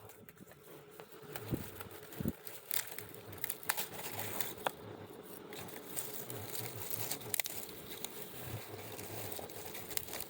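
Dry vines and leaves rustling and crackling while mini pumpkins are picked by hand, with sharp snaps scattered throughout and a couple of soft low thumps near the start.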